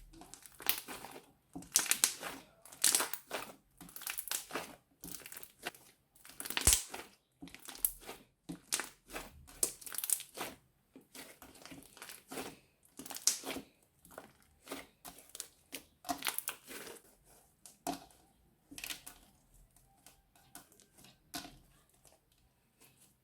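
Plastic bag crinkling and crackling as slime is squeezed and kneaded inside it, in irregular bursts several times a second, busiest in the first half and thinning out toward the end.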